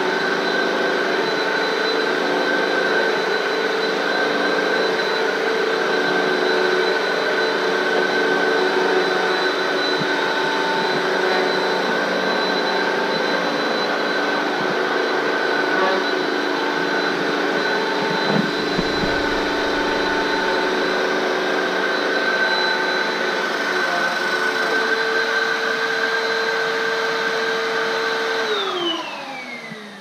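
Hoover upright vacuum cleaner running steadily with a high whine as it is pushed over a floor mat. About two seconds before the end it is switched off and the motor winds down, its whine falling in pitch.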